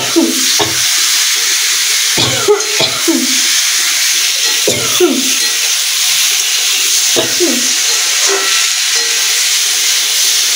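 Food sizzling steadily in hot oil in a pan, while a person coughs in short bursts, about eight times. The coughing is brought on by the pungent cooking fumes.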